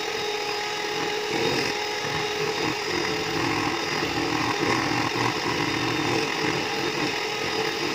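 Electric hand mixer running steadily on high speed, its beaters whipping cream in a bowl until it thickens.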